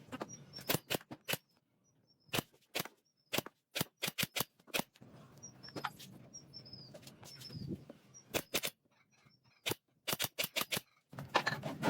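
A run of sharp, irregular taps and knocks, some in quick pairs, with silent gaps between them. Faint high chirps fall in short runs in the background.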